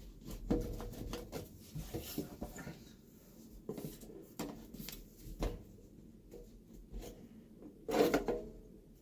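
Scattered light clunks, scrapes and rubbing from hand work under a kitchen sink while a garbage disposal is being taken out, with a louder cluster of knocks near the end.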